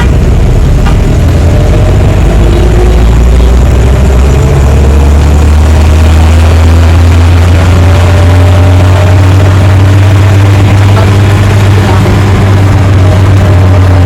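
Car engine and road noise heard from inside a moving car, a loud steady low rumble; the engine note rises as the car picks up speed, then settles into a steady drone about four seconds in.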